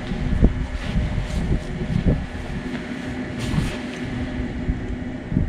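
Wind rumbling on the microphone, with scattered knocks and rustles as a pop-up hub ice shelter is opened.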